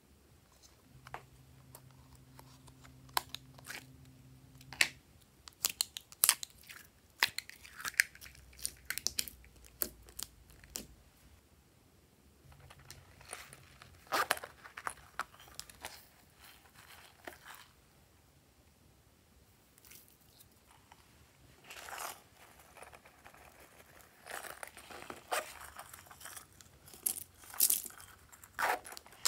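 Hands handling small plastic containers and a silicone zipper pouch: scattered clicks and taps, with rustling, scratchy stretches in the second half.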